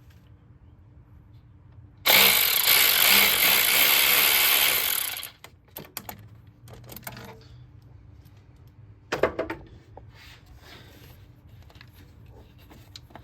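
A power tool running for about three seconds on a fastener in the Jeep's engine bay, then a second short burst several seconds later, loosening a bolt.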